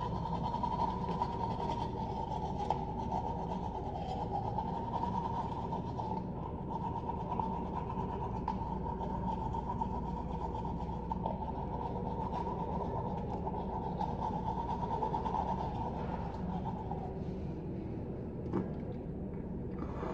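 Manual toothbrush scrubbing teeth: a steady, rapid rasping of bristles against teeth, over a constant background hum.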